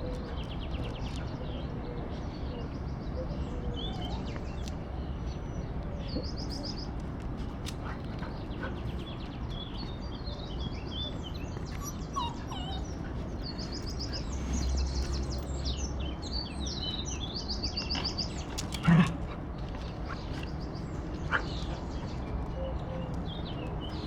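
Small songbirds chirping and singing fast trills, with steady low background rumble; a single sharp knock sounds about 19 seconds in.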